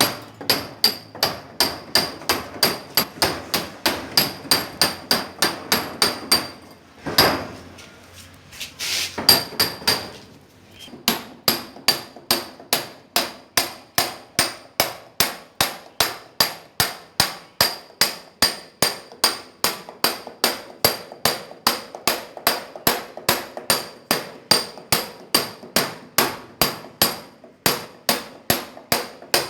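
Hand hammer striking a steel chisel in a steady rhythm, about three to four blows a second, each with a bright metallic ring. The blows stop for about three seconds about seven seconds in, where there are two duller noises, then carry on.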